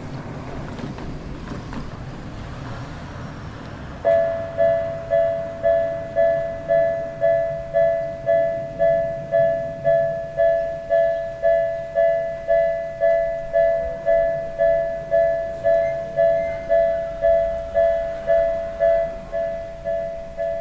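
Japanese railway level-crossing warning bell starting up about four seconds in after a low rumble, then striking steadily just under twice a second, each two-tone ding ringing away before the next, signalling that a train is approaching.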